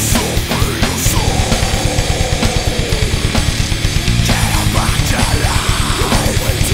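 A heavy rock band playing live: electric bass, electric guitar and fast, driving drums. A long falling note about a second in.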